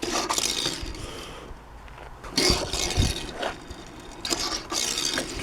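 Small die-cast toy car rolling and scraping across a tabletop, with a few knocks and handling noises, including a low thump about three seconds in.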